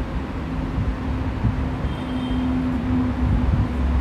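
Steady low background rumble with a constant hum, and a faint short squeak about halfway through as a marker writes on a whiteboard.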